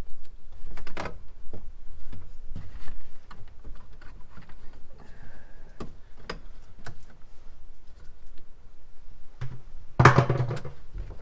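Scattered light clicks and knocks of electrical wires and metal parts being handled inside an open breaker panel, with one louder thump about ten seconds in.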